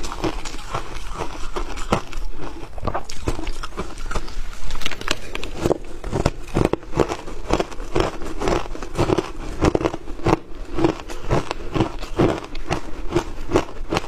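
Shaved ice crunching between the teeth as mouthfuls are chewed, close-miked: a steady run of crisp crunches, coming faster and more regularly, about two or three a second, from around halfway through.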